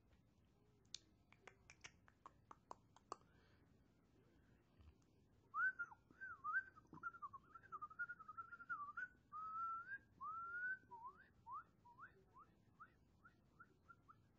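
A person whistling: a wavering, held tune, then a run of short rising swoops that come faster toward the end. Before it, about a second in, there is a quick run of faint clicks.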